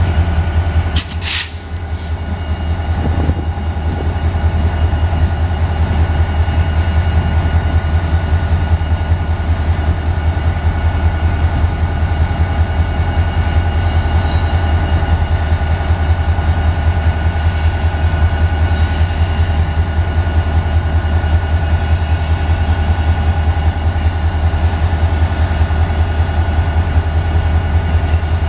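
Diesel locomotive CSX 6142 idling loudly with a steady low throb, while the cars of a mixed freight train roll past on the next track. A sharp knock about a second in.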